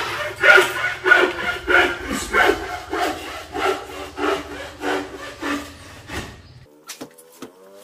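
Hand saw cutting wood in steady back-and-forth strokes, about one and a half a second, each stroke rasping with a slight ring. The sawing stops about six seconds in, followed by a few faint clicks.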